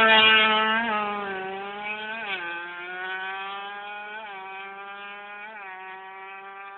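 Yamaha 125Z two-stroke single-cylinder motorcycle running hard and moving away, its buzzing engine note fading steadily. The pitch creeps up between a few brief blips and drops, the largest drop about two seconds in.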